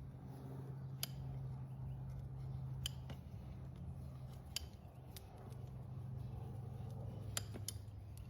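Hoof nippers cutting through an overgrown horse hoof wall, giving several sharp snips a second or two apart over a low steady hum.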